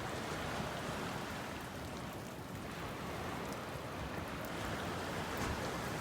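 Steady rain falling, with surf washing on the beach underneath.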